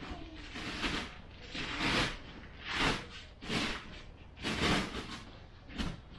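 Heavy vinyl of a deflating inflatable bounce house rustling and whooshing as it shifts and pushes out air, in six separate swishes about once a second.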